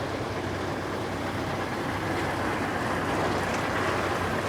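John Deere X9 1100 combine harvester working through wheat. A steady, even drone of machinery with a low hum, growing slightly louder about halfway through.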